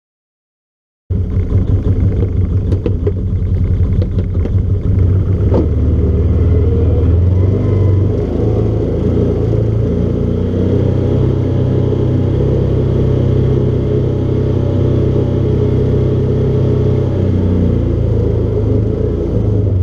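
Side-by-side UTV's engine running as it drives slowly along a gravel trail, a loud steady low hum that comes in suddenly about a second in, with a few light ticks a few seconds later.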